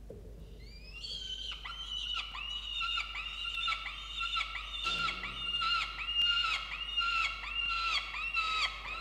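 Peregrine falcon calling: a rapid series of harsh, squealing notes, about two to three a second, starting about a second in and running on past the end.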